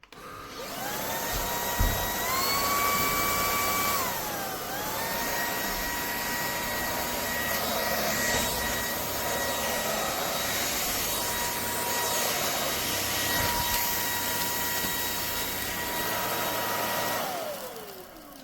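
Lubluelu 25000Pa cordless stick vacuum's high-speed motor switched on and spinning up to a steady whine. The pitch steps up about two seconds in, dips briefly around four seconds, then holds steady. Near the end it is switched off and the whine falls away as the motor spins down.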